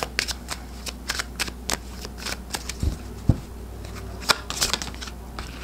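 Oracle cards being shuffled by hand: a run of quick, irregular card clicks and snaps, with two soft low knocks about three seconds in.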